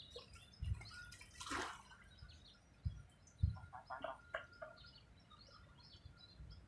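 A hooked Nile tilapia splashes once at the water's surface about a second and a half in, while small birds chirp over and over. A few dull low thumps are also heard.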